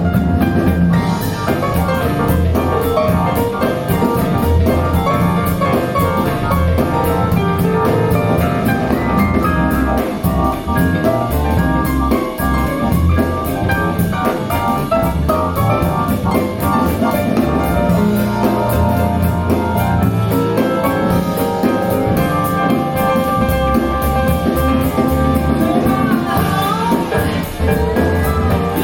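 Music with a steady beat played back through a pair of Wharfedale Linton Heritage bookshelf loudspeakers.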